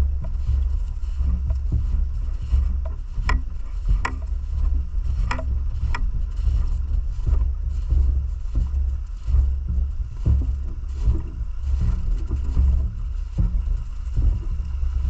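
Steady low rumble with a few sharp clicks spread through its first half.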